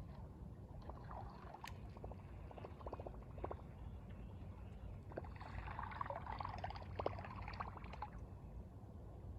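Water splashing and trickling, densest for a couple of seconds just past halfway, with scattered small clicks over a steady low rumble.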